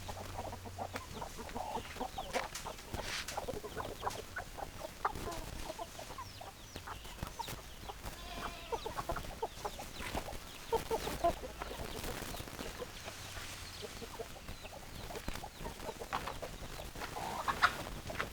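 Chickens clucking: many short calls from several hens, overlapping and coming one after another without a break.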